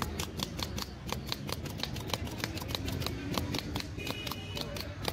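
Rapid, even clicking, about six or seven sharp clicks a second, over a steady low rumble of street noise.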